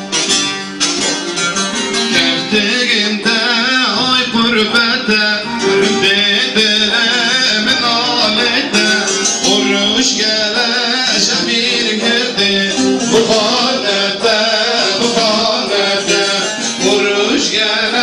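Turkish folk music: a bağlama (long-necked saz) plucked with electronic keyboard accompaniment, and a man singing with it from a few seconds in.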